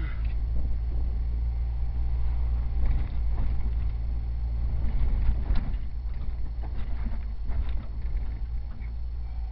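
Jeep heard from inside its cabin while it drives slowly over rocky off-road ground: a steady low engine and drivetrain rumble, with scattered knocks and rattles from the body and suspension over the rocks.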